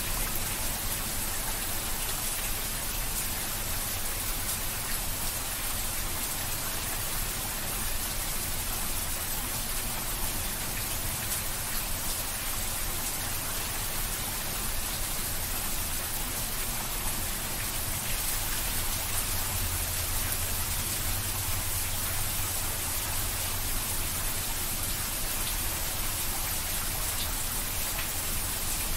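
Heavy rain falling steadily onto a flat concrete rooftop and the trees around it: a dense, even hiss of drops splashing into standing water, with fine spatters throughout.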